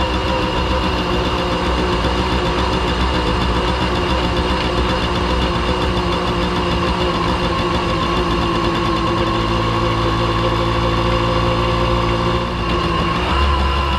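Simson S51 B moped's 50 cc single-cylinder two-stroke engine running at a steady idle, its note shifting slightly partway through, with a brief dip and pick-up near the end.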